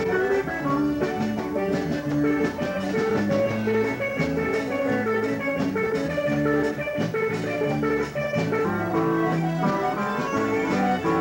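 Live band music led by an electric guitar, with a steady beat.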